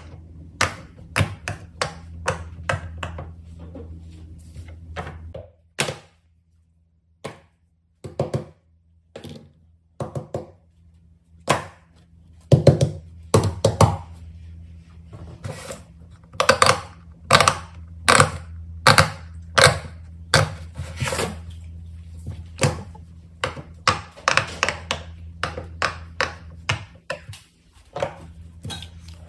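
Plastic fidget toys being handled: irregular taps, clicks and thunks, some louder than others, with a steady low hum beneath. The hum drops out for a few seconds about a quarter of the way in, when the taps are sparse.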